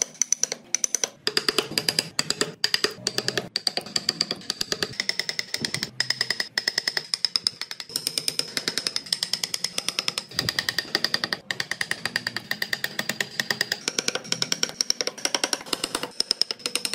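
Rapid, repeated taps of a wood-carving chisel cutting into hardwood, coming in quick runs of sharp clicks with a high ring to them.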